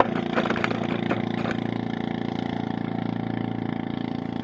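Small boat engine running steadily, with a few sharp clicks and knocks in the first second and a half.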